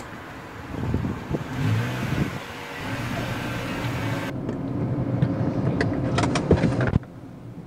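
Peugeot 308 car driving slowly onto a wet driveway, its engine running at low speed with tyre hiss. About four seconds in the sound changes abruptly to a steadier engine sound with a few sharp clicks, and it cuts off suddenly near the end.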